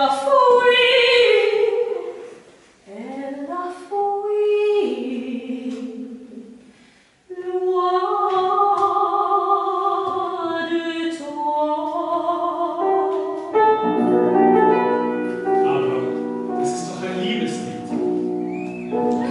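A woman singing operetta in a classical voice, phrases with long held and sliding notes broken by short pauses. About two-thirds of the way through, piano chords come in under the voice.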